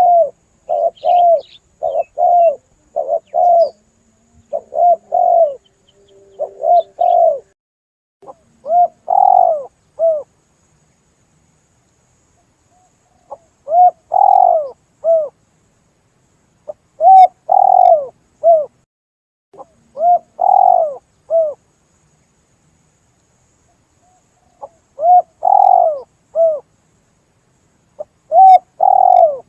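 Spotted dove cooing, a tekukur lure call: a quick run of short coos over the first seven seconds, then repeated three-note coo phrases, the middle note longest, every three to five seconds.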